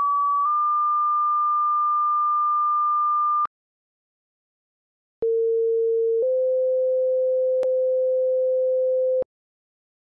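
Computer-generated two-tone sequential siren activation codes: a high pure tone for one second steps slightly higher and holds for three seconds, then after a short pause a lower pair follows the same pattern. The first code calls a 30-second short alert, the second a fire attack signal.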